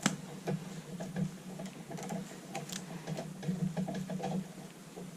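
Irregular light clicks and ticks of stranded wire being handled and wrapped around a cable by hand, over a steady low hum.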